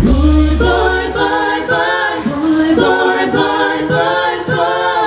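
Several voices singing in close harmony without the beat, in short repeated phrases. A deep backing-track bass note dies away about a second in.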